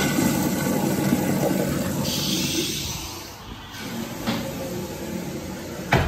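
American Standard Trimbrook urinal flushing: a loud rush of water through the bowl that tapers off about three seconds in to a quieter run of water, with a sharp click near the end.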